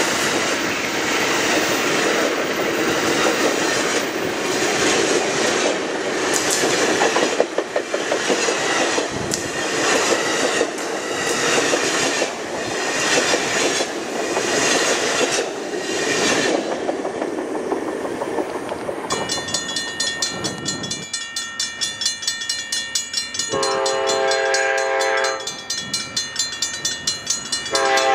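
Amtrak Superliner passenger cars rolling past close by, their wheels clattering over the rail joints in a regular beat about once a second; the rush fades away after about 17 seconds. Near the end, the Amtrak P42DC locomotive's K5LA five-chime air horn sounds from a distance, one blast of about two seconds and then another.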